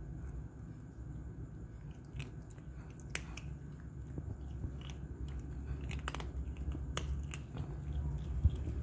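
Cats crunching dry kibble: a calico cat and her kitten chewing, giving scattered sharp crunches and clicks, one louder near the end, over a low steady background rumble.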